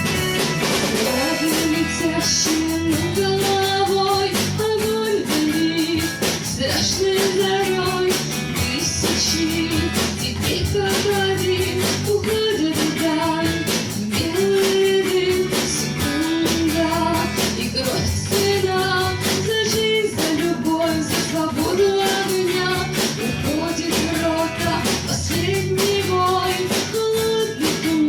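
Rock band playing a song: electric guitar and drum kit with a repeating stepped melody over a steady beat.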